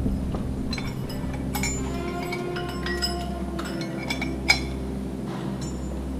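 Metal caving hardware, carabiners and rigging on the rope, clinking together in a scatter of small ringing clinks, the sharpest a little past halfway.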